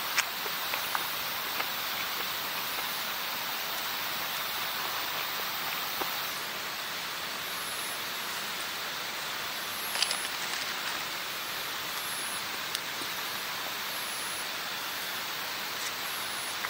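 Steady rain-like hiss with a few faint scattered clicks, and a short cluster of clicks about ten seconds in.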